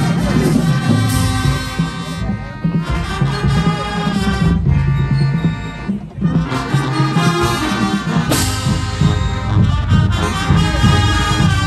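Marching band's brass section, sousaphones included, playing loudly, with a brief dip about six seconds in.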